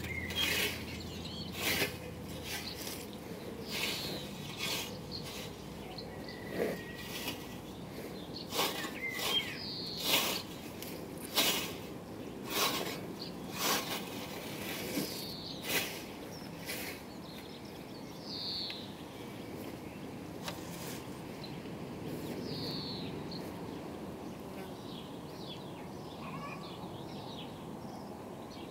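A scythe with a riveted Isaac Nash blade on a Scottish Y-frame swishing through short grass in trimming strokes, roughly one a second. The strokes stop partway through, leaving outdoor ambience with a few bird chirps.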